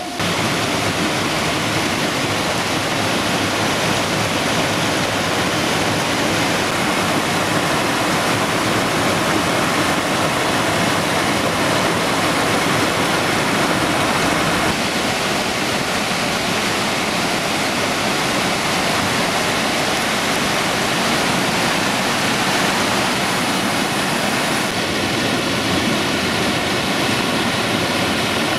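Mountain stream rushing and splashing over boulders in small cascades, a steady, even rush of water whose tone shifts slightly about halfway through and again near the end.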